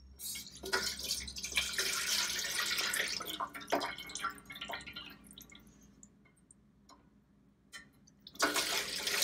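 Chicken stock splashing as it is ladled from the stockpot and poured through a fine-mesh strainer onto cheesecloth. There are two pours, the second starting near the end after a pause of about three seconds. This is the first round of straining the broth.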